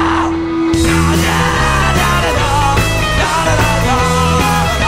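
Live punk-rock band (two electric guitars, electric bass and drum kit) playing loud. A held guitar note fades and the whole band crashes back in under a second in, with the lead vocals yelled into the microphone.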